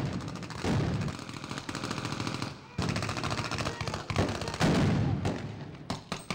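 Rapid rifle fire, many shots in quick succession in long runs, with a short break about two and a half seconds in.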